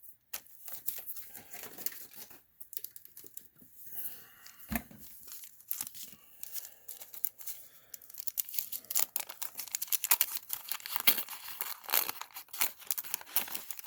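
Wax paper wrapper of a Garbage Pail Kids trading card pack being torn open and crinkled, a run of quick papery crackles that grows denser over the last few seconds. A single dull knock about five seconds in.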